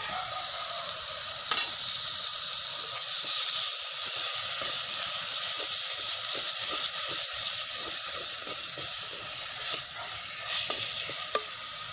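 Sliced onions and tomatoes sizzling in hot oil in a clay pot, sautéing until soft, stirred with a wooden spoon. A steady high hiss, with a few faint knocks of the spoon.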